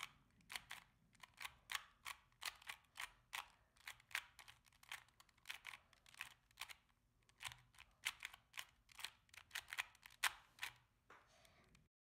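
Plastic clicks and clacks of a Rubik's 2x2 cube being scrambled, its layers turned quickly by hand in an irregular run of sharp clicks, several a second. The clicks cut off just before the end.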